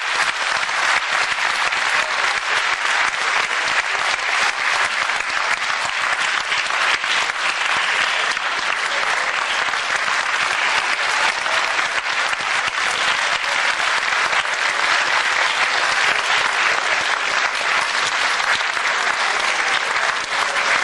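Theatre audience applauding: dense, even clapping that holds steady throughout.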